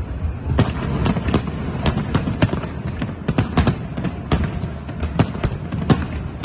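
Fireworks display: an irregular run of sharp bangs and crackles, several a second, over a continuous low rumble.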